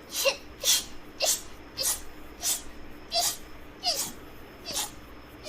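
A girl sneezing rapidly over and over: about eight short, breathy sneezes, one roughly every two-thirds of a second.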